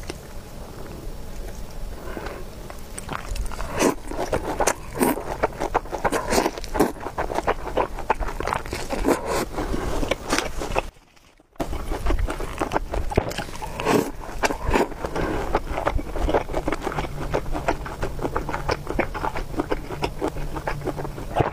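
Close-miked eating of spicy Chinese food: a string of irregular chewing, biting and wet mouth sounds, with utensils scraping. It breaks off for about half a second around eleven seconds in.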